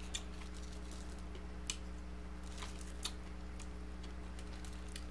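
Eating sounds from crispy deep-fried tilapia: scattered sharp clicks and crackles as the crunchy fried fish is picked apart and chewed, the sharpest about a second and a half in, over a steady low electrical hum.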